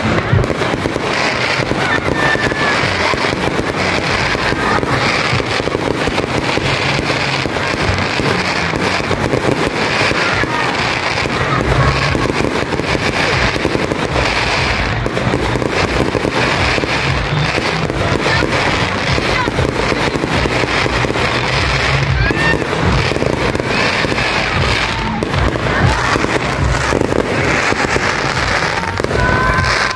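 Aerial fireworks going off in a continuous rapid run of bangs and crackling, with no pause, as many glittering shells burst at once.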